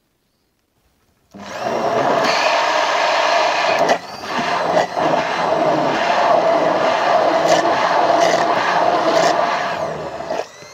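Immersion blender puréeing strawberries with sugar in a tall beaker. It starts about a second in and runs steadily, with a brief dip near four seconds, then stops near the end.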